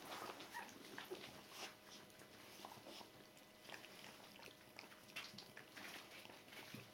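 Faint, scattered little squeaks and soft clicks from two-week-old Border Collie puppies nuzzling into their mother.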